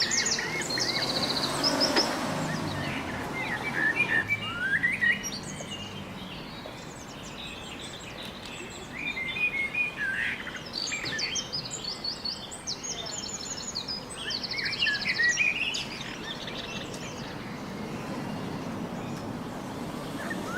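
Birdsong from several birds at once: quick chirps, trills and fast runs of repeated high notes overlapping one another, coming in busy spells with quieter gaps in the middle and near the end.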